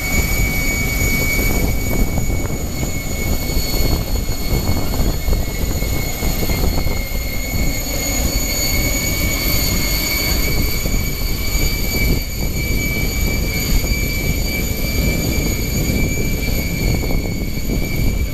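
Miss Geico racing catamaran's turbine engines whining at a steady high pitch just after spool-up, over a constant low rumble of exhaust, as the boat moves off. A fainter second whine rises to join the first about five seconds in.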